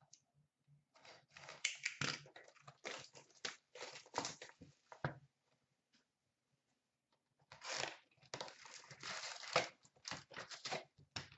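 Packaging on a sealed box of Fleer Showcase hockey cards being torn and crinkled as the box is opened. Two spells of crinkling and tearing with a pause of about two seconds between them.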